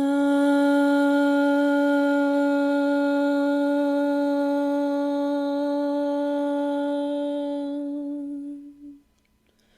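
A woman's voice holding one long, steady hummed tone on an exhaled breath, a guided vocal exhale in breathwork. It holds one pitch for about nine seconds, fades slightly, and stops near the end.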